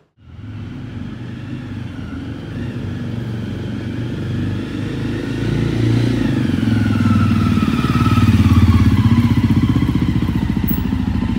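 Cruiser motorcycle engine running at low speed as the bike rolls up the lane and passes close by, growing louder to its peak about eight seconds in, with its pitch dropping as it goes past.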